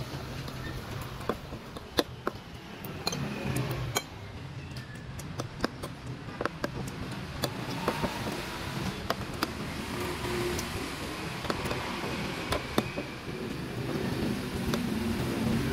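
Eating sounds: a metal spoon scraping and tapping in a bowl along with chewing. They come as irregular sharp clicks over a steady background hum.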